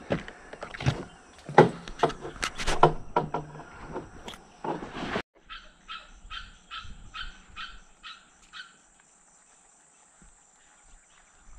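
Hollow knocks and scraping of an aluminium jon boat being pushed through reeds over a levee. After an abrupt cut, a quick run of about ten short, evenly spaced chirps, about three a second.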